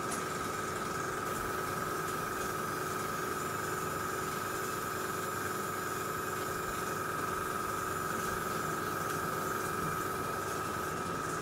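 Airbrush compressor running steadily with a constant whine, and the airbrush hissing as it sprays a dark enamel shading coat onto the model locomotive's underframe.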